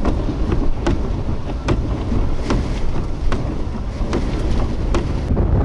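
Strong storm wind rumbling and buffeting on the microphone, with sharp irregular ticks about twice a second, like rain striking the glass, and the low drone of heavy trucks on a wet highway.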